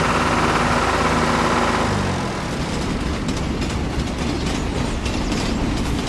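An engine-like hum that slides down in pitch and fades about two seconds in, giving way to the rattling clickety-clack of a toy train running along its track.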